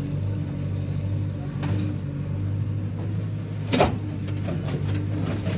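Backhoe loader's diesel engine running steadily, with one sharp knock nearly four seconds in.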